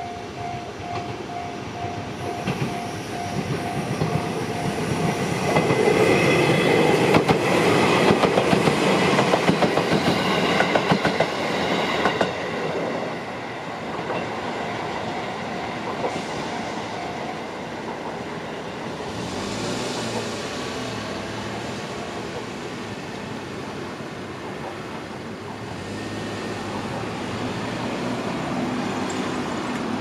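Japanese railway crossing alarm ringing its rapid repeating bell tone, then an electric train passing over the crossing from about six to twelve seconds in, its wheels clattering over the rail joints with a high whine. The alarm runs on a few seconds more and stops, then a road vehicle drives over the crossing.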